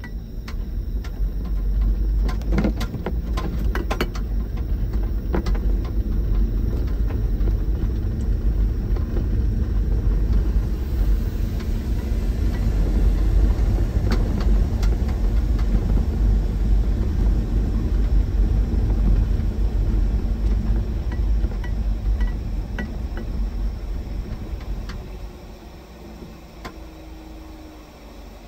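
Vehicle cabin noise while driving slowly over a bumpy dirt farm track: a steady low engine and tyre rumble, with knocks and rattles from the bumps early on. The rumble drops away near the end.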